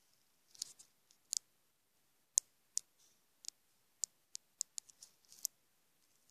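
Sharp, irregular clicks and taps of hard plastic, about a dozen of them, as small plastic toy figures are handled and set down on a tile floor.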